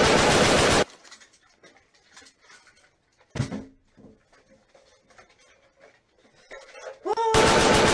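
Loud continuous automatic gunfire that cuts off abruptly about a second in. A quiet stretch of faint rustling and handling follows, with one brief thump near the middle, before the gunfire starts again abruptly near the end.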